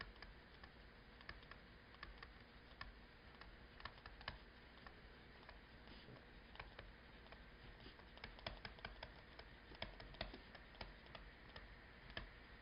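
Near silence: room tone with faint, irregular light clicks and taps scattered throughout.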